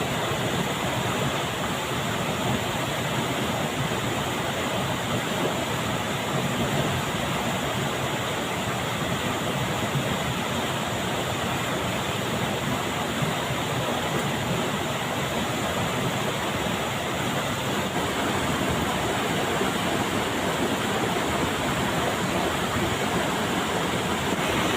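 A fast-flowing river rushing steadily, one even, unbroken noise of running water.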